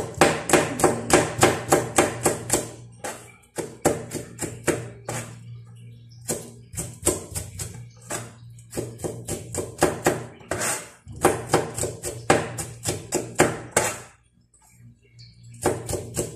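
Kitchen knife chopping garlic cloves against a cutting surface in quick runs of about five strokes a second, broken by short pauses, over a steady low hum.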